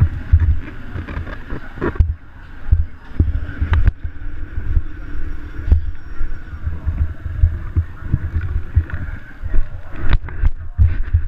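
KTM 450 SX-F motocross bike's single-cylinder four-stroke engine running at low revs, heard from a helmet-mounted camera. Irregular heavy low rumbles on the microphone, with a few sharp knocks.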